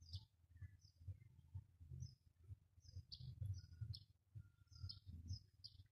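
Faint, short, high-pitched bird chirps, repeated irregularly several times a second, over a low uneven rumble.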